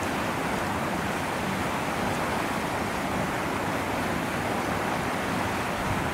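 Steady, even rushing noise with no distinct events, unchanging throughout.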